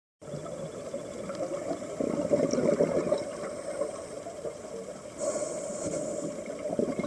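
Muffled underwater rushing and crackling picked up by a waterproof camera on a scuba dive, surging louder about two seconds in and again about five seconds in, typical of a diver's exhaled regulator bubbles.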